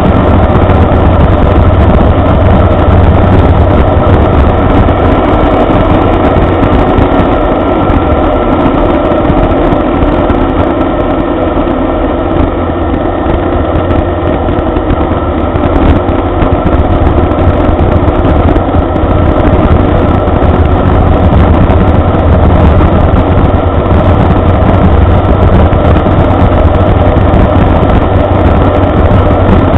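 Inverted Rotax 582 two-stroke twin turning a wooden three-blade propeller, running steadily in flight, heard from inside the cockpit as a loud, even drone. It eases a little quieter for several seconds around the middle, then comes back up.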